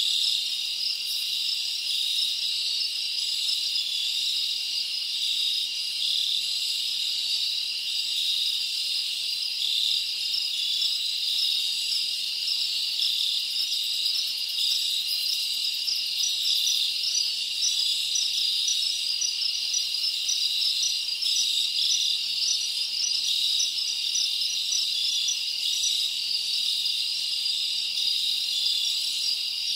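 A dense, steady chorus of insects trilling and chirping high in pitch, with fine rapid pulsing and nothing lower beneath it.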